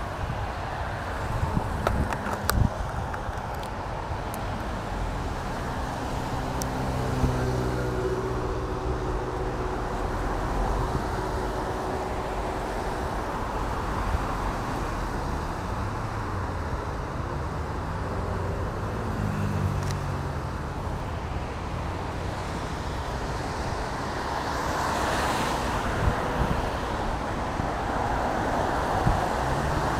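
Street traffic: motor vehicles passing with engine hum that rises and falls in pitch, over a steady bed of road noise. A vehicle passes close by with a rush of tyre noise near the end.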